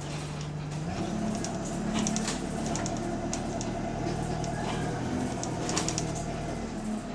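Bus engine heard from inside the cabin, picking up in pitch about a second in and pulling steadily for several seconds before easing off near the end, with clicks and rattles from the interior. The bus has an exhaust leak.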